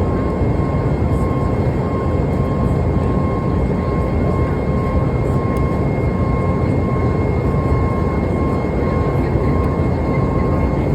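Cabin noise of a Boeing 737 MAX climbing: the steady rush of its CFM LEAP-1B turbofans and airflow, with two thin, steady whining tones above it.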